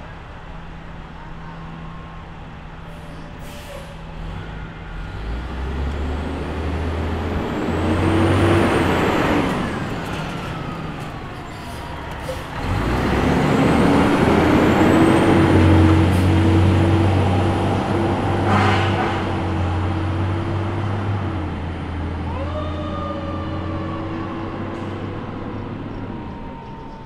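Fire department aerial ladder truck pulling out and driving past, its diesel engine running under load and getting louder as it passes, with sharp hisses from the air brakes.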